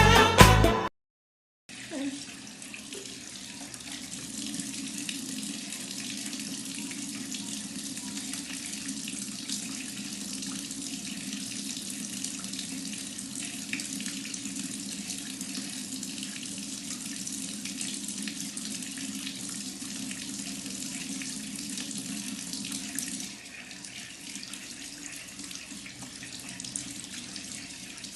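Music cuts off within the first second. Then a tap runs steadily into a sink for handwashing, a little quieter for the last few seconds.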